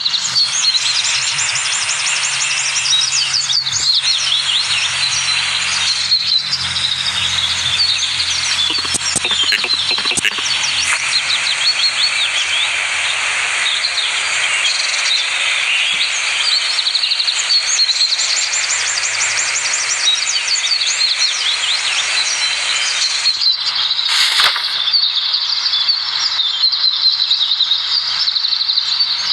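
Dense chorus of many small birds chirping and trilling without pause over a steady background hiss, with a faint low hum underneath during the first ten seconds or so.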